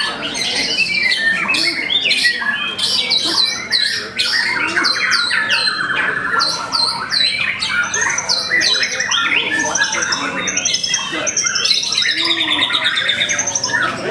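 White-rumped shamas (murai batu) singing at once in a dense, unbroken chorus of overlapping whistles, chirps and rapid trills.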